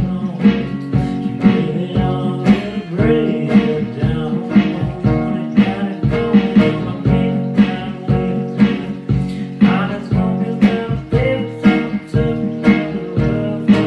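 Guitar strummed in a steady rhythm, about two strokes a second, ringing chords under each stroke.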